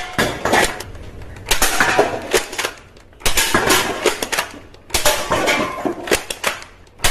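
Plastic toy guns clicking and clattering in rapid runs of sharp clicks, in about four bursts of a second or so each.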